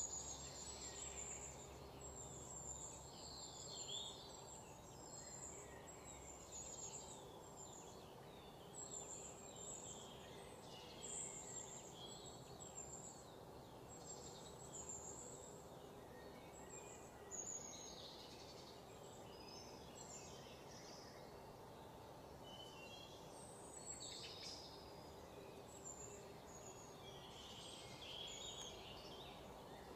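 Faint birdsong: many short, high chirps scattered throughout, over a faint steady hum.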